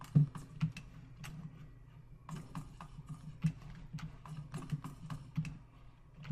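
Computer keyboard and mouse clicking: sharp, irregular clicks, several a second, with a few louder ones.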